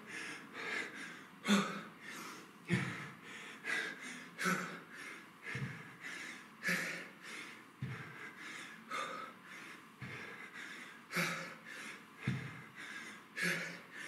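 A man breathing hard under heavy exertion during kettlebell dead high pulls: sharp breaths in and out about once a second, in time with the reps, with a low thump every two to three seconds.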